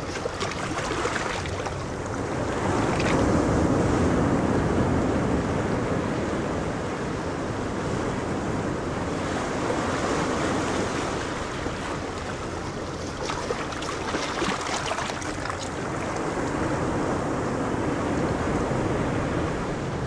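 Steady rushing water with a wave-like wash that swells and eases slowly every few seconds, with no distinct splashes.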